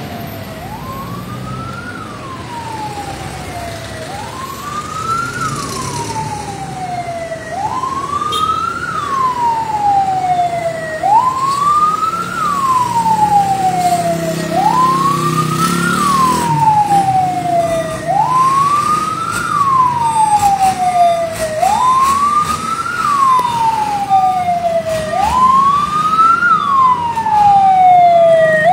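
Fire truck siren wailing: a quick rise and a slow fall in pitch, repeating about every three and a half seconds and growing louder as the truck approaches. The truck's engine rumbles as it passes about halfway through.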